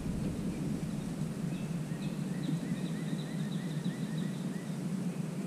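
Steady low outdoor background rumble. A bird calls faintly in a quick run of short, high chirps, about four a second, from about one and a half seconds in until near the end.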